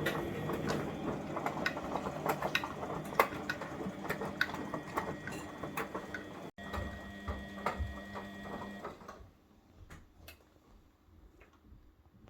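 Old Beko washing machine running mid-cycle: a steady motor hum with many small clicks and rattles, which stops about nine seconds in, leaving only faint sounds.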